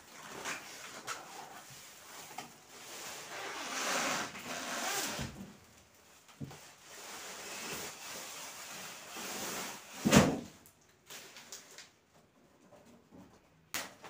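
A large cardboard refrigerator box being handled and shifted: scraping and rustling of the cardboard, with one loud thump about ten seconds in.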